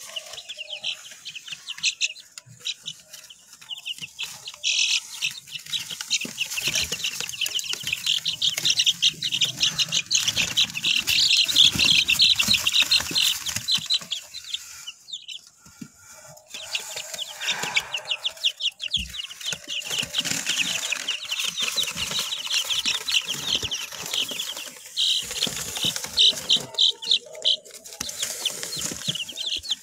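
Silkie chickens calling: a dense run of rapid, high-pitched calls that eases briefly about halfway through.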